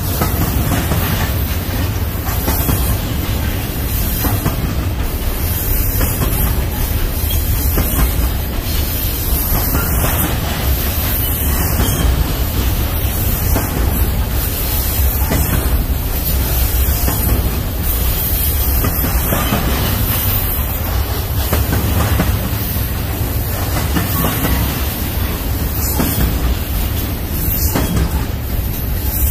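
Double-stack intermodal freight train rolling past: a steady rumble and rattle of well-car wheels on the rails, with no break.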